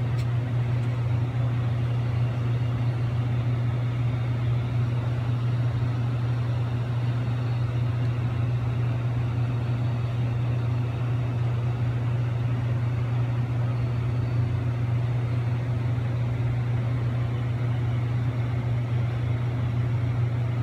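Steady low hum of HVAC equipment running, with an even background whoosh and no change in level.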